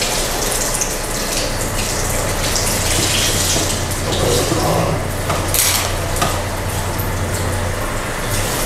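Steady rushing noise like running water, with a low steady hum that starts about a second and a half in and stops near the end.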